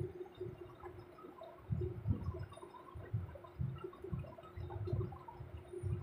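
Crumb-coated bread rolls deep-frying in a steel kadai of hot oil: the oil bubbles with scattered small pops over irregular low rumbling thuds, with a faint steady hum beneath.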